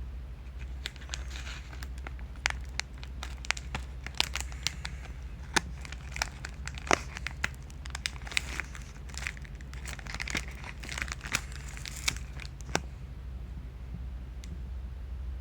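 Small plastic wrappers of trading-card packets crinkling and tearing as they are opened by hand, with many sharp crackles that die away about 13 seconds in. A steady low hum runs underneath.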